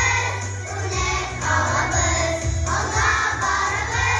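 A choir of young children singing together over a backing track with a steady bass line.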